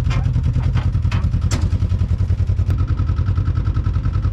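Polaris RZR side-by-side engine idling with a steady low throb, a few sharp clicks in the first second and a half, and a thin high steady tone joining about two and a half seconds in.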